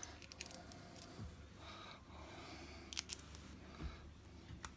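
Faint clicks and taps of a rebuilt RC differential and its spur gear being pressed by hand into a tight-fitting aluminium diff housing.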